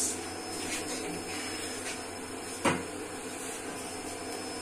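Kitchen clatter over a steady appliance hum: a light click at the start and one sharp knock a little over halfway through.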